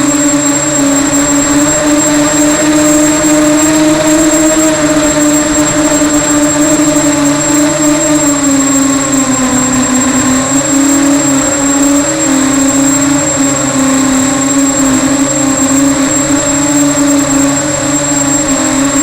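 Small multirotor racing drone's electric motors and propellers buzzing steadily with a thin high whine above, the pitch sagging a little about nine seconds in and coming back up as the throttle eases and returns.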